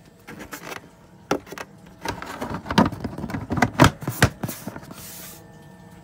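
Irregular knocks and rubbing, about a dozen, loudest between two and four and a half seconds in, from movement and handling close to the microphone, ending with a short hiss about five seconds in.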